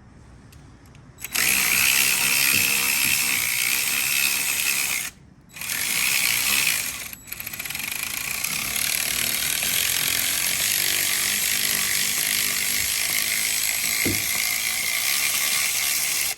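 Power tool run in bursts while the coil pack screws are being taken out: a loud, steady, hissy running noise. It starts about a second in, breaks off twice briefly, then runs on and cuts off suddenly.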